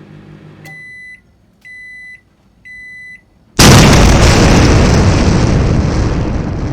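Intro sound effect: three electronic countdown beeps, about one a second, then a sudden loud explosion boom that dies away slowly over about three seconds.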